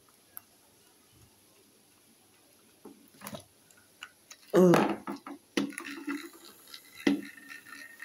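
Small screwdriver clicking and scraping on a screw in a plastic toy train engine, with handling knocks of the plastic body; the loudest clatter comes about halfway through.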